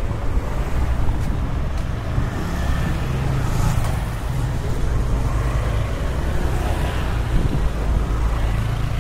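Street traffic: a motor scooter and a car driving past close by, with a steady low engine rumble.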